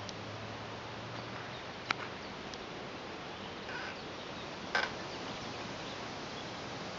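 Steady outdoor background hiss, with two short sharp clicks about two seconds and about five seconds in.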